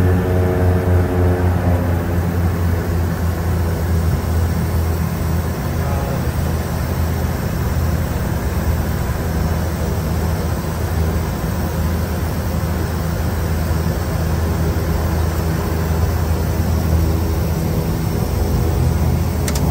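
Twin Garrett TPE331 turboprop engines of a BAe Jetstream 32 running steadily, heard inside the cockpit as a loud, even low hum.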